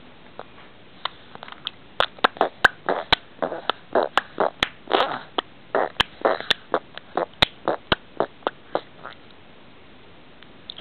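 A toddler making mouth noises right at the microphone: an irregular run of wet lip smacks, clicks and short sputtering raspberries, several a second, which stops about nine seconds in.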